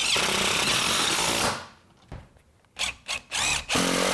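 Cordless impact driver driving pancake screws through a metal Z closure into a standing seam roof panel. One run of about a second and a half, a pause, a few short blips, then another run near the end.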